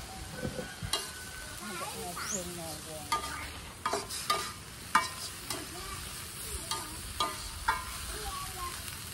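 Vegetables sizzling as they stir-fry in a wok, with a metal spatula scraping and clinking against the pan several times.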